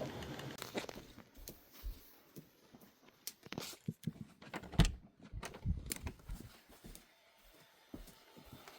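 Irregular rustling and light clicks and knocks, with one sharper, louder thump about five seconds in.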